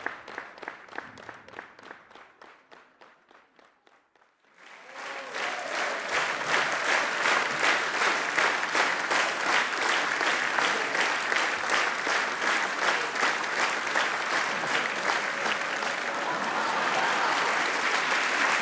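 Audience applause dying away over the first four seconds, then a new round of applause swelling up about four and a half seconds in and continuing steadily.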